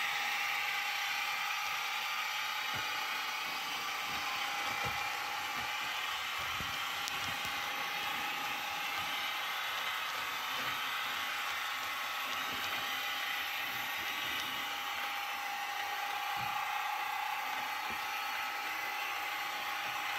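Model railway train running on the layout: a steady electric whir from the model Deltic locomotive's motor, with faint irregular clicks of wheels on the track.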